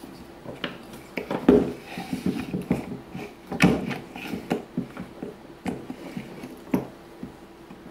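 Handling noise from a Rotax 503 recoil pull-starter being reassembled by hand: irregular small clicks and knocks of its plastic pulley and metal spring parts. Two knocks stand out, about one and a half and three and a half seconds in.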